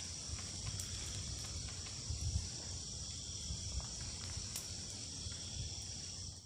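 A steady, high-pitched chorus of forest insects, with a low rumble underneath and a few faint clicks; the sound cuts off abruptly at the end.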